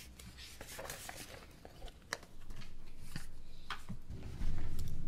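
Sheets of paper rustling and small clicks and knocks from people handling handouts at a meeting table. A low muffled rumble comes in about halfway through and grows louder near the end.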